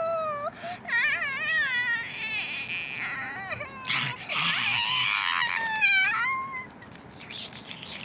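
A child's voice imitating a crying baby: high, wavering wails and whimpers that break off and start again several times, with breathy sobbing partway through and a falling wail near the end.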